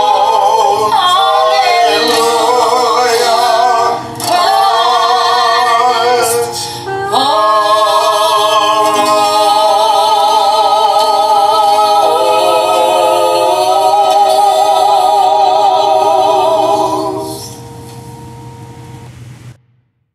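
Recorded song with a high solo voice singing with strong vibrato over accompaniment, ending on long held notes. The music drops away sharply about three seconds before the end and then cuts off to silence.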